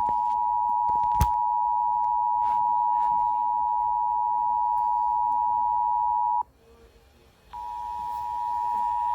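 Emergency Alert System alert tone: a steady high tone just under 1 kHz that cuts off about six and a half seconds in, then starts again after about a second's silence, marking the start of a new weather warning broadcast. A single click about a second in.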